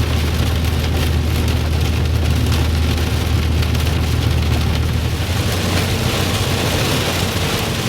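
Heavy rain hitting a moving vehicle, heard from inside the cab, over the vehicle's steady low road drone. The hiss of the rain grows stronger about five seconds in.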